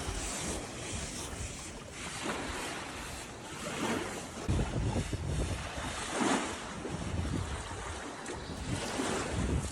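Sea waves surging and washing in several swells, with wind buffeting the microphone.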